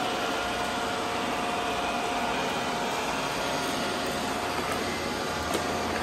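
Several robot vacuums, a Shark ION Robot and an iRobot Roomba among them, running together on a tile floor: a steady motor and suction whir with a thin, steady whine over it.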